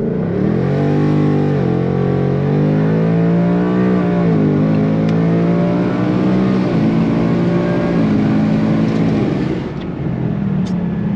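2020 Ford Mustang GT's 5.0 V8 at full throttle from a standing start. Its note climbs in pitch and drops back at each of several upshifts, then the engine backs off near the end. A little wheel spin at launch before the tires grab.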